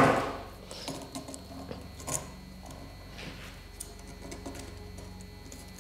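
Needle-nose pliers working steel wire, crimping the twisted wire ends flush against a metal washer: a scrape right at the start that fades within half a second, then a few small sharp metal clicks spaced about a second apart, the loudest about two seconds in.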